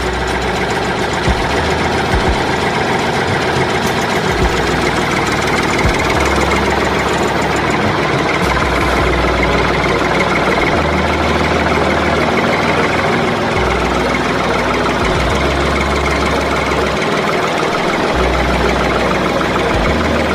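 A tractor engine running steadily, with a deep low rumble that comes and goes every few seconds.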